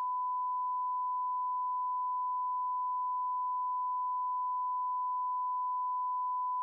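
A steady, unbroken electronic test tone at one pitch, the classic 'no signal' beep of a lost broadcast feed.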